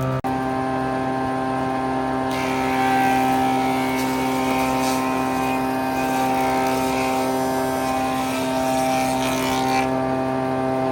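A machine running steadily, a constant humming drone with many overtones.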